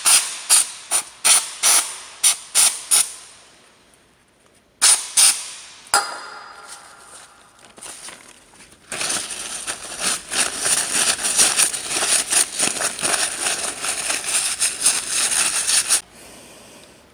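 Aerosol carburetor and choke cleaner sprayed onto an EGR valve gasket to clean off carbon: a quick run of about eight short hissing bursts, two more about five seconds in, then a long continuous spray from about nine seconds in that cuts off suddenly near the end.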